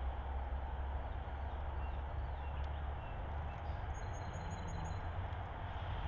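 Steady outdoor background noise with a low rumble, and faint high bird chirps, including a thin high trill about four seconds in.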